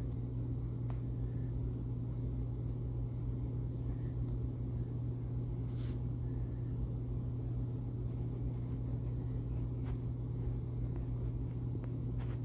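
Steady low hum, with a few faint clicks.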